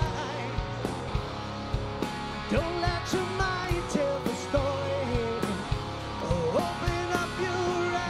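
Live rock band playing: drum kit and electric bass under a melodic guitar or voice line.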